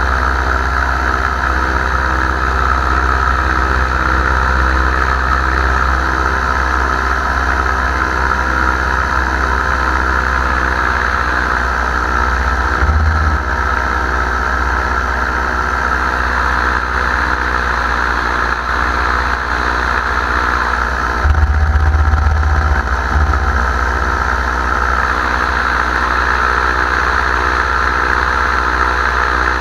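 Paramotor engine and propeller running steadily in flight, a constant drone with a strong low end. The low rumble swells briefly about 13 seconds in and again for a couple of seconds a little past the 21-second mark.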